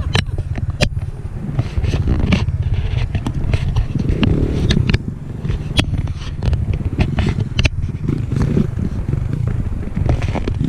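Enduro motorcycle engine running at low revs, a low rapid throbbing, with scattered sharp clicks and knocks over it.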